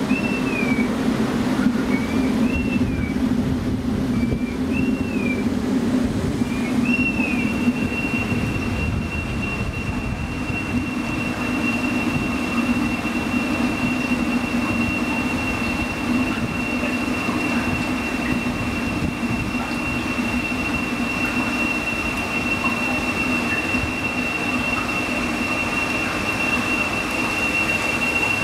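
Electronic sound-art piece from the Morning Line pavilion's loudspeakers: a low drone under a high chirp that glides up and down about every second and a half. About seven seconds in, the chirp settles into one steady high whistle-like tone.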